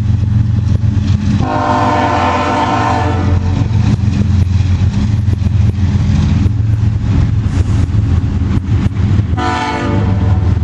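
Freight train locomotive running past with a steady low engine drone, its horn sounding one long blast about a second and a half in and a shorter blast near the end.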